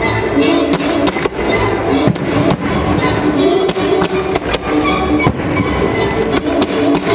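Fireworks display: many sharp bangs and cracks of shells launching and bursting in quick succession, with music playing underneath.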